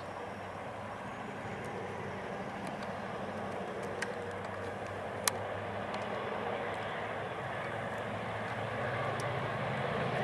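Distant diesel locomotive engines, a low steady drone, with two sharp clicks about four and five seconds in.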